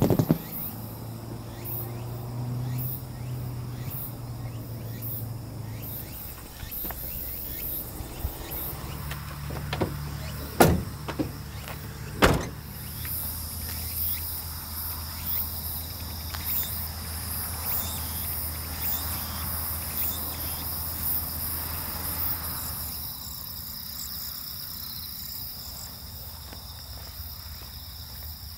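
Insects chirping steadily outdoors, with a low steady hum under them that fades out about three-quarters of the way through. Two sharp knocks come about ten and twelve seconds in.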